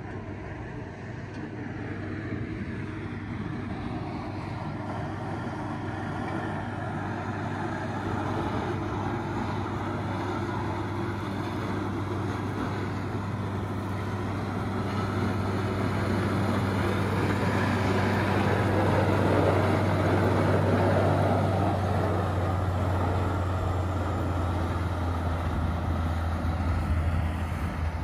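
Diesel engine of a motor grader running steadily, growing louder until about two-thirds of the way through as it works along the road clearing spilled sugarbeets.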